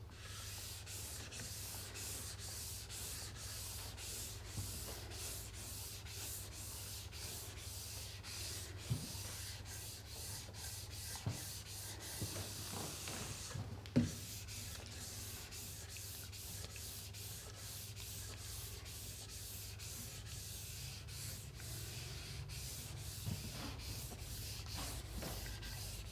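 A synthetic polishing cork (Toko Thermocork) rubbed briskly back and forth along a ski base, about two or three hissing strokes a second, buffing in a dried coat of liquid wax. A few light knocks of the block are heard, the sharpest about 14 seconds in.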